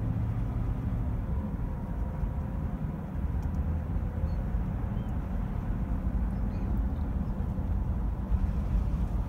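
Steady road noise inside a moving car's cabin: tyre and engine rumble at a steady cruising speed, with a faint steady hum above it.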